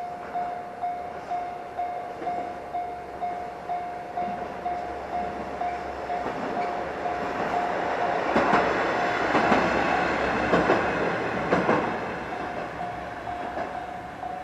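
Level-crossing warning bell ringing at about two strikes a second while a KiHa 120 diesel railcar passes over the crossing. The passing swells from about six seconds in, and a run of wheel clacks over the rail joints between about eight and twelve seconds partly drowns the bell.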